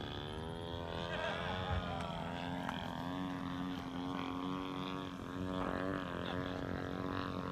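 Radio-controlled aerobatic model airplane's engine and propeller droning overhead, its pitch rising and falling as the throttle changes through the manoeuvres, over a steady low hum.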